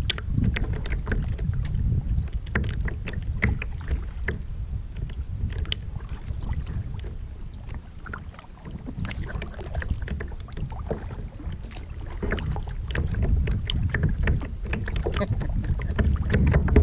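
Water lapping and splashing irregularly against a paddled kayak's hull, over a low rumble of wind on the microphone; it eases off about halfway through and picks up again near the end.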